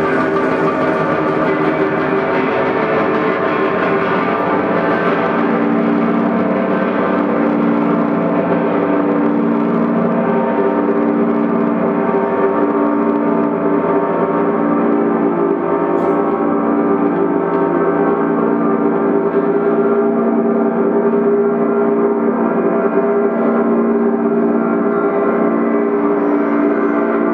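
Electric guitar played with a bow, sustaining a loud, gong-like drone of many layered steady tones. Its brightness slowly dulls over the first several seconds.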